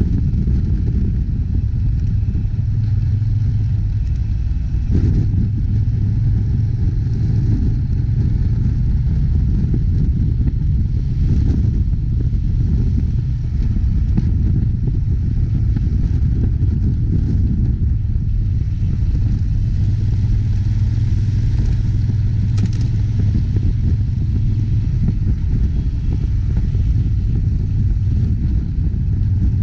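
A vehicle running steadily: a continuous low rumble, with a few faint knocks.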